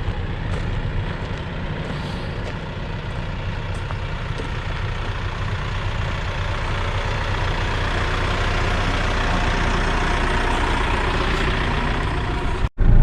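Vehicle engine running steadily, slowly growing a little louder.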